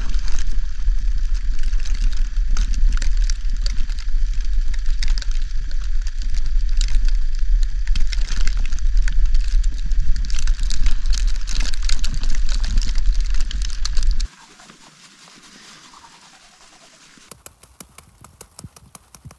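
Heavy wind buffeting on a camera microphone over a dense crackle of snow as the camera moves through deep powder. It cuts off abruptly about 14 seconds in to near quiet, then soft clicks and rustling of tent fabric and a zipper pull come in near the end.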